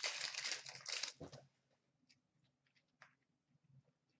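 A 2015-16 Upper Deck Series 2 hockey card pack's wrapper being torn open and crinkling for about the first second, followed by a couple of faint clicks as the cards are handled.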